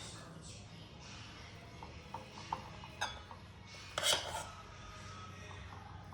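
Faint clinks of dishes and utensils: a few light taps, then a louder clink with a short ring about four seconds in.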